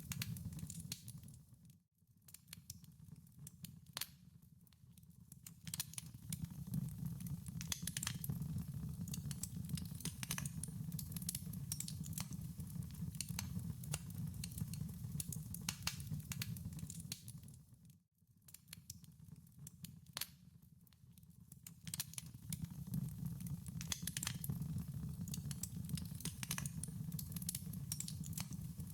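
Wood fire in a fireplace crackling, with frequent sharp pops and snaps over a steady low rumble of the flames. Twice, about 2 seconds in and again about 18 seconds in, the sound fades almost to nothing and then swells back.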